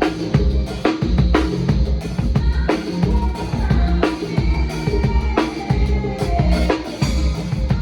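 Sonor drum kit played in a steady groove, with kick drum, snare and Orion cymbal hits, over sustained low bass notes.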